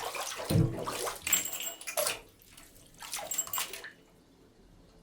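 Bathtub drain gurgling and sucking as the bath empties, in irregular gurgling bursts that stop for a moment and return, then fade to faint trickling about four seconds in.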